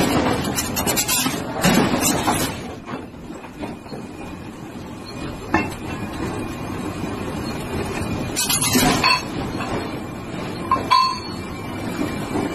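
Red-hot steel train-wheel blank being forged under a press or power hammer: a few heavy strikes and metallic clinks, several seconds apart, over a rough background noise.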